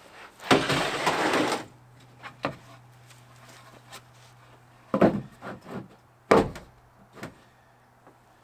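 Installation work noises: a scraping slide lasting about a second near the start, then two sharp knocks a little over a second apart, over a faint steady low hum.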